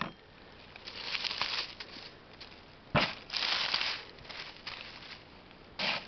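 Dry fallen leaves rustling and crunching under a hand as fly agaric mushrooms are picked from the forest floor, with a sharp crack about three seconds in.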